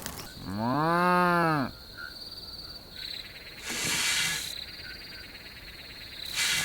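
A cow mooing once, a call of just over a second that rises then falls in pitch, over a steady high thin insect-like whine. Two short bursts of hiss follow later.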